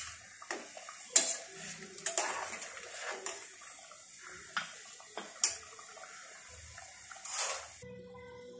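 A ladle stirring a thin curry in a pressure cooker pot, sloshing the liquid and scraping and knocking sharply against the pot's metal side several times. The stirring cuts off suddenly near the end, leaving a faint steady tone.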